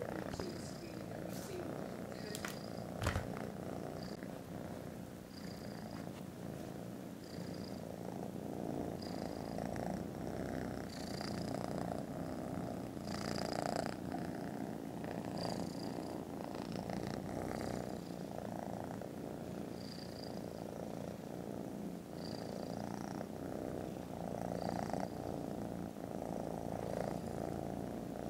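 Sleeping kittens purring, a continuous, very loud purr close to the microphone. A short knock comes about three seconds in.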